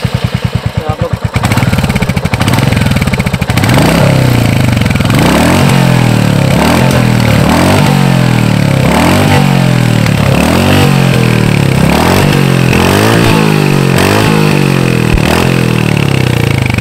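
Royal Enfield Hunter 350's 349cc single-cylinder engine heard at the exhaust, idling with an even thump, then blipped over and over, its pitch rising and falling about once a second.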